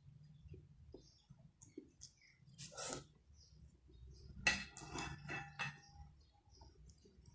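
Eating sounds: a short noisy burst about three seconds in, then a quick cluster of clinks with a brief ring, like a utensil against a bowl, over a low steady hum.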